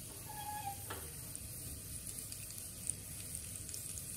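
Cumin seeds sizzling and crackling in hot ghee in a small steel tempering pan, with a few faint pops: the tadka stage, the seeds letting out their flavour.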